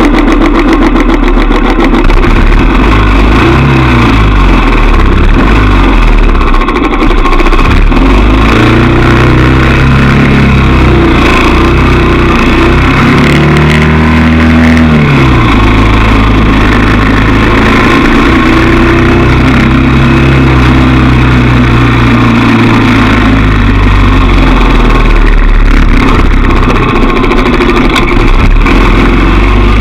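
Motorbike engine running under way: its pitch rises and falls with the throttle and gear changes, with a steep drop and climb about halfway through. A constant rushing noise sits over it throughout.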